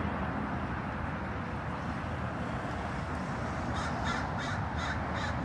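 A steady background hiss, then about halfway through a quick series of about six harsh bird calls, like cawing.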